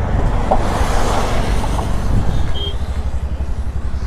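TVS Ntorq 125 scooter's single-cylinder engine running as the scooter rolls slowly, under heavy wind rumble on the microphone. A louder rush of hiss swells from about half a second to two seconds in.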